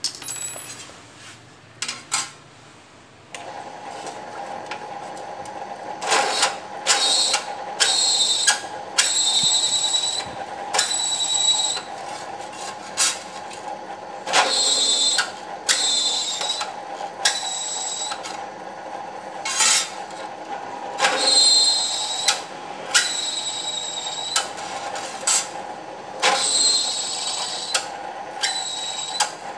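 Small bench drill press starting about three seconds in and running with a steady hum, its bit cutting into a thin metal disc again and again. Each hole is a short, high-pitched screech of bit on metal, about fifteen in quick succession.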